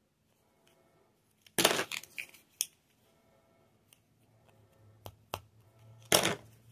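Coin-shaped plastic Risk Strike tokens clicking and clattering against each other as they are handled, with a burst of clatter about a second and a half in, a few lighter clicks, and another burst near the end.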